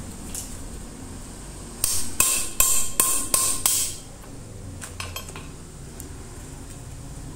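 Small hammer tapping six times in about two seconds on a standing fan's metal motor housing, during a shaft-bushing replacement; the taps are sharp and metallic with a short ring. A few light clicks follow about a second later.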